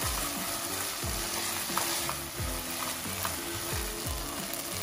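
Shrimp, tomatoes and onions sizzling in oil in a hot nonstick pan, stirred and mashed with a silicone spatula, with a few soft knocks of the spatula against the pan. A hip-hop beat plays underneath.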